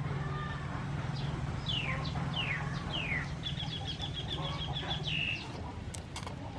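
Birds calling: three downward-sweeping whistles, then a fast high trill ending in one lower note, over a steady low hum that stops about five seconds in.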